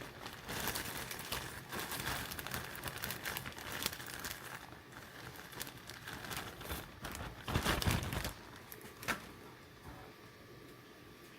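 Rustling, crinkling and clicking of small parts being handled. There is a louder rustling burst about seven and a half seconds in and a sharp click near nine seconds, then it goes quieter.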